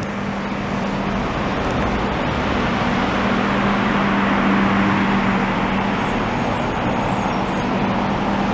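Large snowblower running steadily at full work, casting snow in a high plume onto a pile, with heavy diesel truck engines running alongside. A continuous, dense machine noise with a steady hum, growing slightly louder over the first few seconds.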